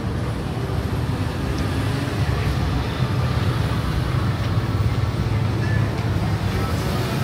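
City road traffic: a steady low rumble of vehicles running past on a busy street.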